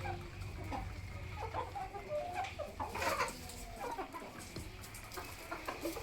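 Chickens clucking as they feed: short, scattered calls, with a louder flurry about three seconds in.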